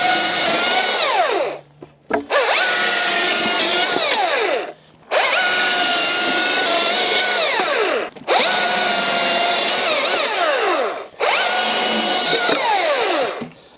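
Small top-handle chainsaw cutting up old boards in five short runs of two to three seconds each. Its motor holds a steady pitch through each cut, then winds down falling in pitch and stops before the next.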